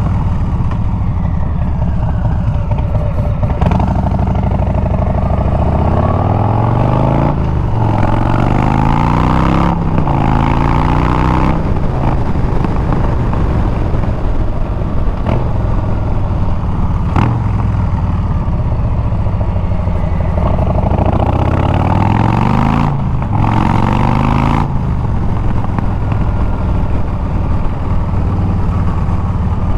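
Harley-Davidson Milwaukee-Eight 114 V-twin through Bassani straight pipes, under way on the road. It pulls up through the gears about four seconds in, with a short break at each upshift, then cruises steadily. Around twenty seconds in it accelerates and shifts up again.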